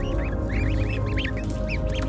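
A group of goslings peeping: many short, high, rising-and-falling cheeps, several a second, over background music with sustained tones.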